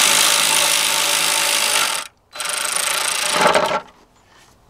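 Cordless 3/8-inch-drive power tool with a 10 mm socket running in two bursts, about two seconds and then about a second and a half, driving a cover bolt down.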